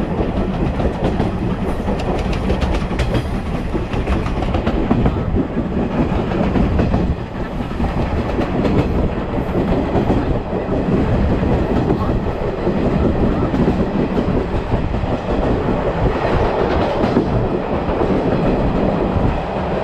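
Moka Railway passenger coach running along the track behind steam locomotive C11 325, heard from inside at the window: a steady, loud rolling rumble of wheels on rail with occasional sharp clicks, dipping briefly about a third of the way through.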